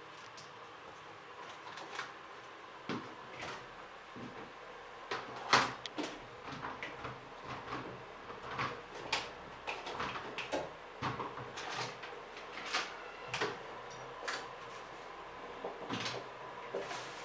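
Things being taken out of a fridge: a run of irregular knocks and clatters of containers and shelves being lifted out and set down, the loudest about five and a half seconds in.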